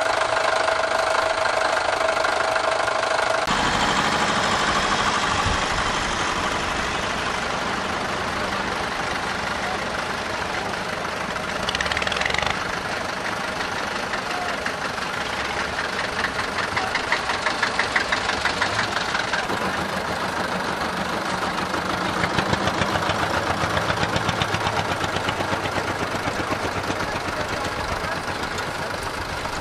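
Vintage farm tractor engines running and idling, the sound shifting abruptly at several points as different tractors come in. In places the engine sound pulses in a regular beat, a few times a second.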